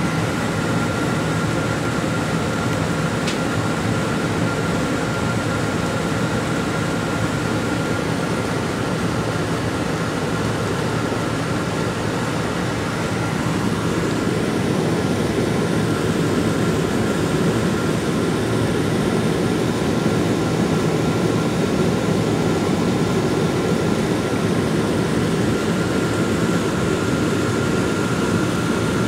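Steady interior noise of a city bus heard from a passenger seat: a low engine hum with cabin rumble and a faint steady high whine, slightly louder from about halfway through.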